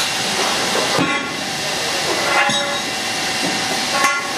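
Three metal clanks with a short ring, from aluminium formwork props being handled and set, over a loud steady hiss.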